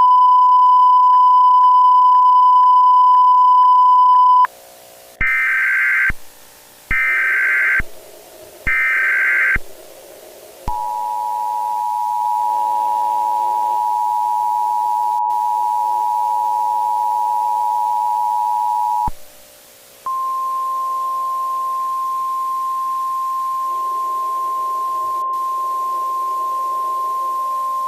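Simulated Emergency Alert System broadcast tones. A steady single beep lasts about five seconds, followed by three short bursts of warbling SAME header data. Then comes the two-tone EAS attention signal, held about eight seconds, and after a brief gap a single long attention tone, all over a low, soft droning music bed.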